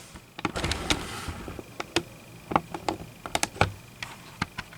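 Sewing machine accessories such as presser feet being handled: irregular light clicks and small knocks, with a plastic-bag rustle about half a second to a second in.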